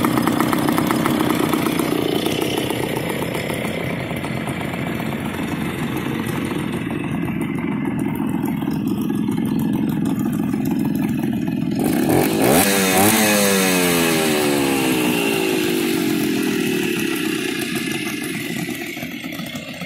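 Hodaka two-stroke motorcycle engine idling as it warms up. About twelve seconds in there is a sudden louder burst, then a pitch that sinks slowly over the next few seconds.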